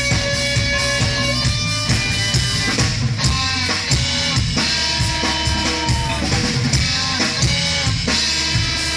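Live rock band playing: a drum kit keeping a steady beat with electric guitars and bass, recorded on a smartphone from the audience.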